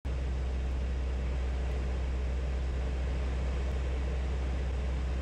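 Single-engine piston light aircraft's engine and propeller drone heard inside the cabin: a steady low hum under a wash of air noise, cutting in abruptly at the start.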